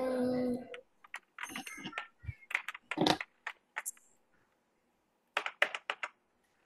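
A short steady pitched tone at the very start, then computer keyboard typing: irregular clusters of key clicks, pausing for about a second before a last flurry near the end.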